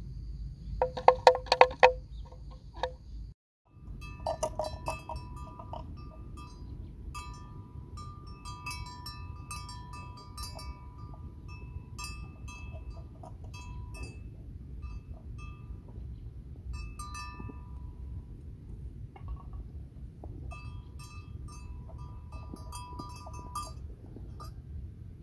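Livestock bells on the water buffalo ringing and clinking irregularly, with a few louder clanks near the start, over a steady low rumble. The sound cuts out briefly about three seconds in.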